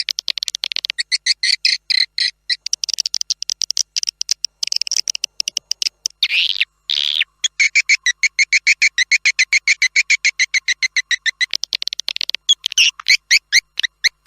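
Edible-nest swiftlets twittering: rapid trains of short, high chirps, about nine a second, broken a little before the middle by two longer sweeping notes before the chirping resumes. This is a swiftlet lure call, the recording played by swiftlet farmers to draw the birds into a nesting house.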